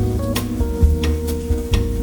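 Background instrumental music in a jazz style, with a low bass line, held notes and light percussion keeping a steady beat.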